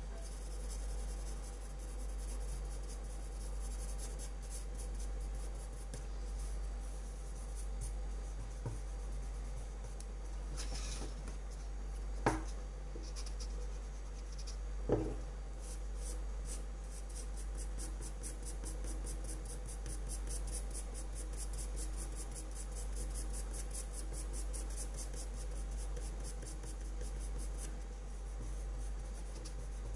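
Pencil scratching across drawing paper in quick, repeated strokes. Two light knocks come about twelve and fifteen seconds in.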